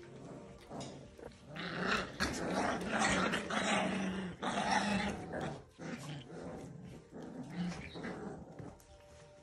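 Labradoodle puppies growling in play, loudest and most continuous from about two to five seconds in, then in shorter bursts.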